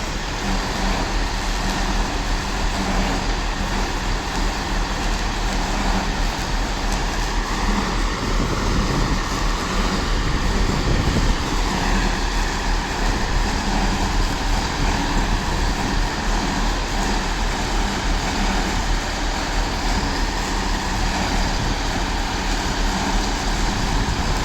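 Diesel engine of a British Rail 'Turbo' diesel multiple unit running with a steady heavy drone and a harsh, rough noise. The noise is quite horrible, a sign that something is wrong with the unit.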